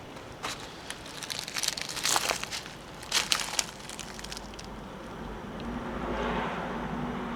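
Irregular crackling and crunching of dry twigs and brush being handled or trodden. A low, steady hum sets in about five seconds in.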